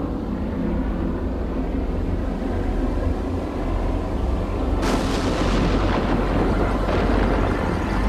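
Dramatic soundtrack effects: a continuous deep rumble, with a sudden loud burst about five seconds in.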